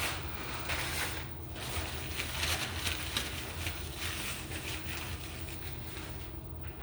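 Irregular rubbing and rustling of wiping up by hand, coming in uneven swells over a low steady hum.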